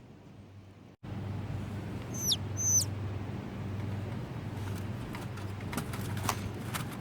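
A bird gives two short whistled calls, each sliding sharply downward in pitch, about half a second apart, over a steady low hum. A few sharp clicks come near the end.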